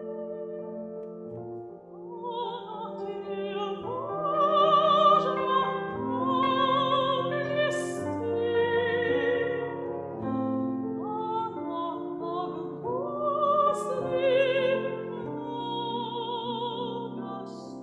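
Classical-style singing with wide vibrato and gliding rises into long held notes, over piano accompaniment. The voice swells loudest a few seconds in.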